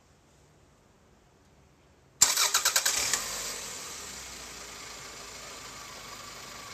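Toyota 5S-FE 2.2-litre inline-four engine being started: about two seconds in the starter cranks in a quick run of pulses and the engine catches within a second. It then settles into a steady idle.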